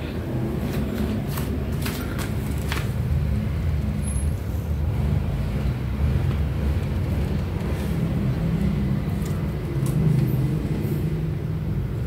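Electric domestic water pump's motor running with a steady low hum, with a few light clicks and knocks in the first few seconds.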